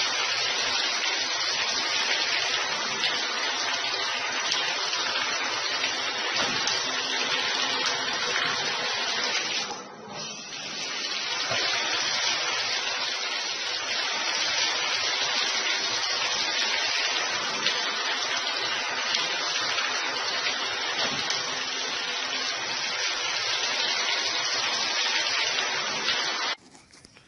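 Hand-held shower head spraying water into a bathtub: a steady rush that dips briefly about ten seconds in and cuts off suddenly near the end.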